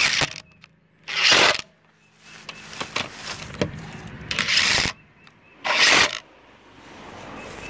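Ridgid Octane R86011 cordless 1/2" impact wrench running lug nuts down in auto mode. It runs in three short bursts, about a second in, around four and a half seconds and around six seconds, each cutting off quickly as the tool senses resistance and stops.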